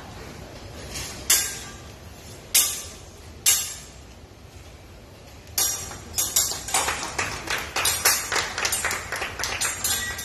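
Teppanyaki chef's metal utensils striking the griddle: four separate clangs that ring on briefly, then from about six seconds in a fast, even run of sharp taps, about four a second.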